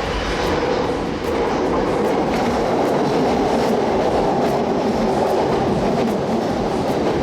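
Train running on its rails: a steady rumble with faint, regularly repeating clicks.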